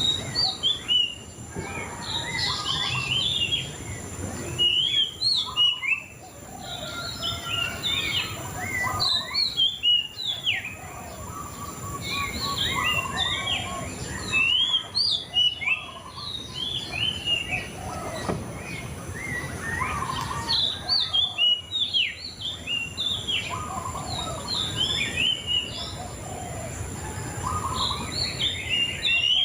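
A songbird known in Indonesian bird-keeping as the murai cacing singing in bursts of quick, sharp chirps and whistles, with short pauses between phrases. A faint steady high-pitched tone runs underneath.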